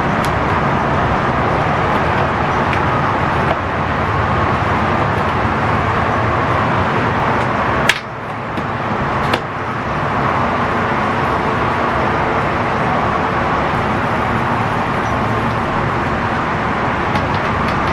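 Kawasaki KLX110 dirt bike's small single-cylinder four-stroke engine running steadily on its first start after a fresh top end. It breaks off with a sharp click about eight seconds in and again about a second and a half later.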